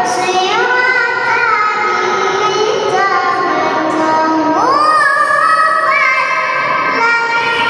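A young girl reciting the Quran in the melodic tilawah style, holding long notes with ornamented turns and a sweeping rise in pitch about halfway through.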